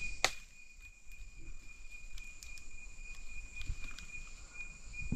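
An insect's steady high-pitched trill, with one sharp click a fraction of a second in and a few faint ticks of movement.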